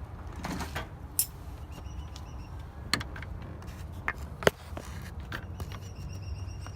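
Hand work on a hose clamp in a car's engine bay: three sharp clicks, about one and a half seconds apart, and a few lighter knocks over a steady low rumble.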